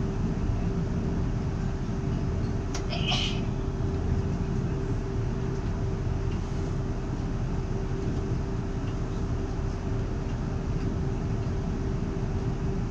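Cabin sound of a Class 360/2 electric train running: a steady rumble of wheels on the track with a steady hum. A brief high squeak comes about three seconds in.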